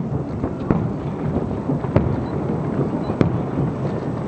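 Aerial fireworks going off in a steady low rumble of overlapping booms, with sharp cracking reports about once a second.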